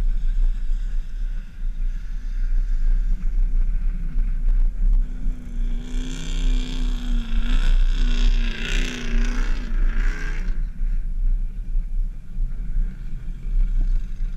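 Jeep Wrangler JK driving on loose sand with its top off: a steady low rumble of engine and wind. Midway, for about four seconds, a louder wavering engine note rises over it.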